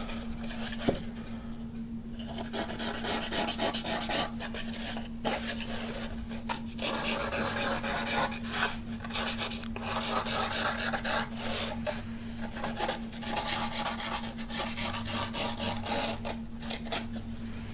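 Fingers rubbing and scraping fabric covering against a balsa wood frame, in scratchy strokes that come and go. A faint steady hum sits underneath.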